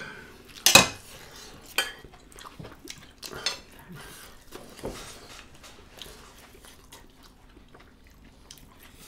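Mealtime sounds: a sharp clink of a metal serving spoon against a stainless-steel kadai under a second in, the loudest sound, then quieter scattered clicks and squishes of eating and of hands mixing curry and rice on plates.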